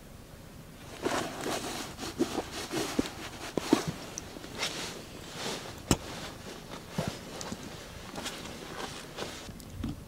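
Handling noise: irregular rustling, scraping and clicking, with one sharp click about six seconds in.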